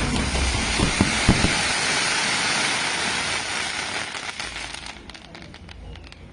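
Fireworks hissing and crackling, a dense spray of sound that fades away over the last couple of seconds.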